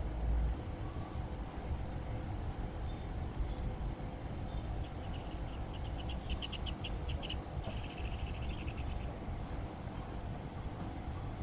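Insects droning steadily in one high, unbroken tone over a low rumble. About halfway through comes a brief run of rapid chirps, several a second, lower in pitch.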